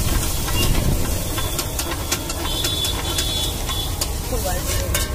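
Egg omelette mixture sizzling and hissing in an iron frying pan over a flaring gas flame, with a metal spatula scraping and clicking against the pan many times.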